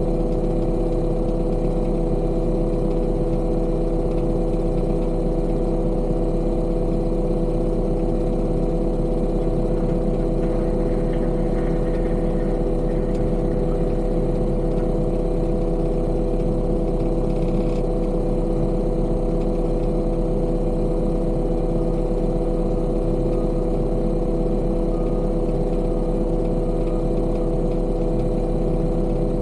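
Heavy construction machine's engine running at a steady speed: a loud, constant drone that holds one pitch throughout.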